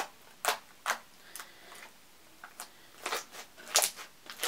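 Soft, jiggly bead-filled slime being squeezed and stretched in the hands, giving sharp pops at uneven intervals, about eight in a few seconds.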